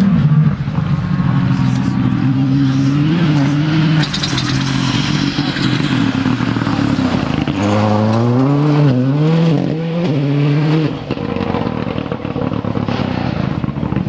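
Ford Fiesta R5 rally car's turbocharged four-cylinder engine revving hard on a gravel stage. The pitch falls, then climbs in quick steps through the gear changes, over the hiss of gravel thrown up by the tyres.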